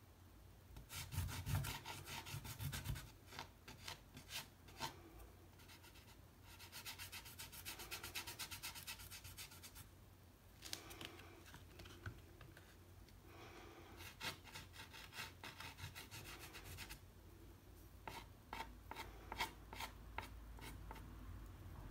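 Pastel stick rubbed across rough watercolour paper in quick back-and-forth strokes: a faint dry scratching that comes in several bursts of a few seconds each, with short pauses between.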